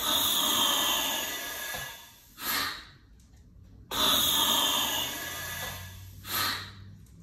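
JD Medical LAVC-2000-D large-animal anesthesia ventilator cycling at a high inspiratory flow rate. Each breath starts with a sudden rush of hissing gas that lasts about two seconds, then a short whoosh follows. This happens twice, about four seconds apart.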